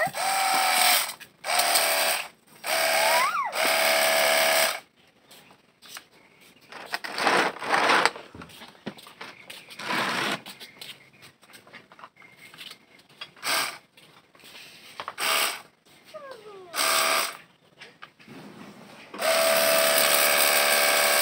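Battery-powered Hitachi pressure washer's motor and pump whining in stop-start bursts as the trigger is squeezed and released: several bursts in the first few seconds, short scattered ones through the middle, then running steadily from near the end.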